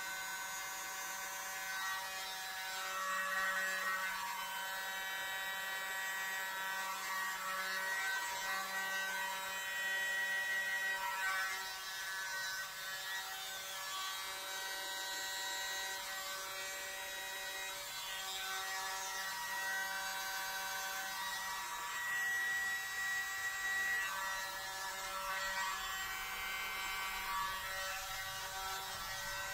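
Miniature hand-held battery leaf blower running with a steady, buzzing motor whine, blowing out acrylic paint in a Dutch pour. It grows louder and softer in stretches as it is worked over the paint.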